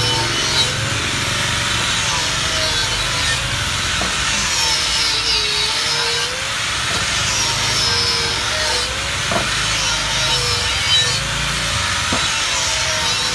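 Handheld angle grinder with an abrasive disc grinding the edge of an aluminium wheel rim. It makes a steady grinding hiss, and the motor whine wavers in pitch as the disc is pressed on and eased off. This smooths the bead seat that tyre sealant has eaten into, so the new tyre will hold air.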